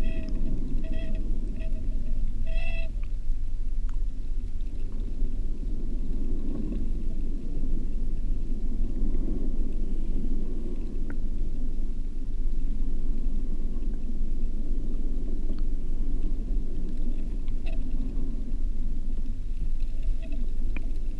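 Steady, muffled low rumble of water movement, heard through a GoPro's microphone inside its waterproof housing on the sea floor in shallow water. A few short squeaky tones break in during the first three seconds and again near the end.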